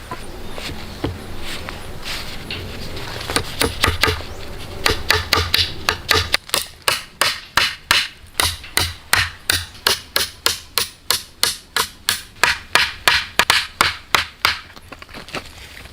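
Hammer blows on wood: a few scattered knocks, then a steady run of quick strikes, about three or four a second, that stops shortly before the end.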